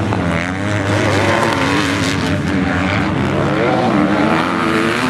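Motocross motorcycle engines revving, their pitch rising and falling over and over with throttle and gear changes.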